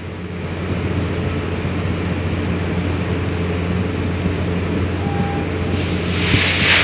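Steady low drone of a cement carrier's shipboard machinery. Near the end a gust of wind buffets the microphone.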